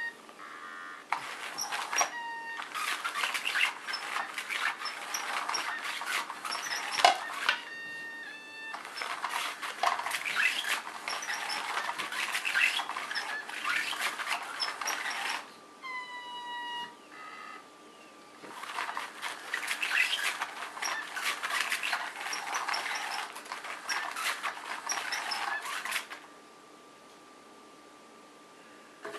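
Cat's Meow toy's motorized wand sweeping under its nylon cover, giving long stretches of rustling and scraping. It stops about halfway through and again near the end. A cat gives a few short meows over it.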